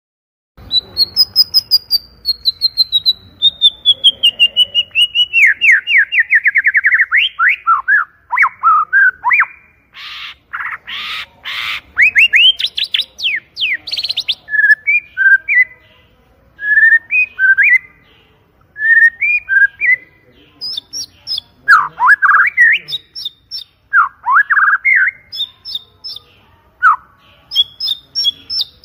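White-rumped shama singing. The song starts about half a second in with a long run of quick notes sliding steadily down in pitch. A few harsh rasping notes come about ten seconds in, followed by varied whistled phrases, some of them very high.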